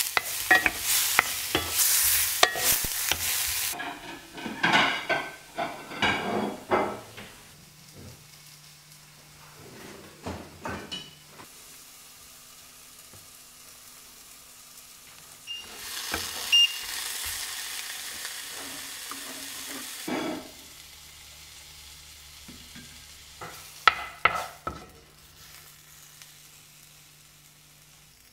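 Sliced mushrooms frying in a cast-iron skillet, sizzling, with a spatula stirring and knocking against the pan. The sizzle dies down for a while and comes back, and a few sharp knocks come near the end.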